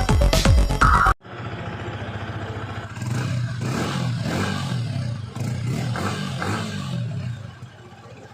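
Electronic music with a steady beat cuts off about a second in. It gives way to a sports motorcycle's stock exhaust running, which grows louder as the throttle is opened a few times in the middle and then settles and fades near the end.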